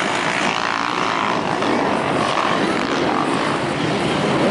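Motocross bike engines revving on the track, a steady engine drone with the pitch rising and falling as the riders work the throttle.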